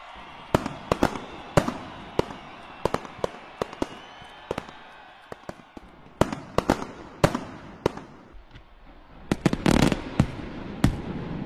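Aerial fireworks bursting: sharp bangs at irregular spacing, roughly two a second, with a rapid cluster of bangs about nine and a half seconds in.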